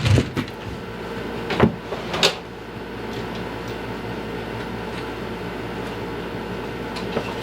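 Three sharp knocks of hand tools or parts handled on the push mower in the first couple of seconds, over a steady low hum.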